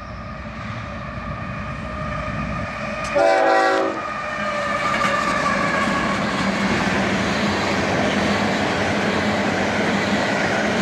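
CSX diesel freight train approaching and passing: a short, loud locomotive horn blast about three seconds in, then the locomotives and a string of tank cars rolling by, the noise of engines and wheels on the rails growing steadily louder.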